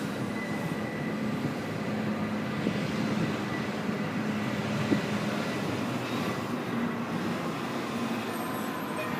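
Steady outdoor city background noise: a constant rumble of road traffic with a faint low hum.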